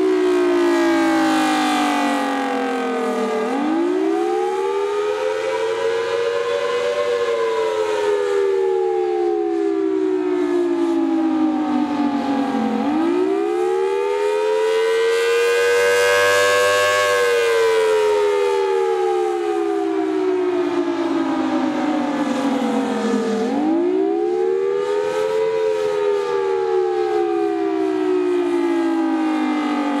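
Federal Signal Thunderbolt 1003 outdoor warning siren sounding the attack signal: a wail that climbs for a few seconds, then falls slowly, repeating about every ten seconds. Its loudness swells and fades as the rotating horn sweeps round.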